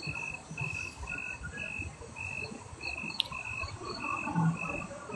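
Night insect chirping in an even rhythm, a little under two chirps a second, over a low background murmur. A single sharp click about three seconds in.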